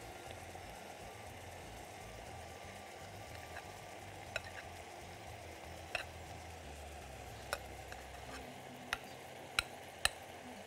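Metal spoon scraping and clinking against a glass bowl and pan rim as cooked rice is spooned into a hot pan, over a steady quiet sizzle of frying. The sharp clinks come several times from about four seconds in.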